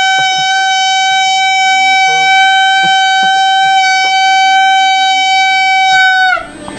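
A loud, steady buzzing tone held on one pitch, which slides down in pitch and cuts off about six seconds in. Faint clicks and knocks sound underneath it.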